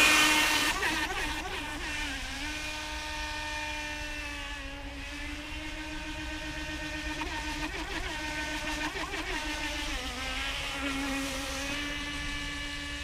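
Pro Boat River Jet 23 RC jet boat's electric motor and water-jet pump running at speed: a steady high whine with a few brief dips in pitch. It is loudest as the boat pulls away at the start, then holds level.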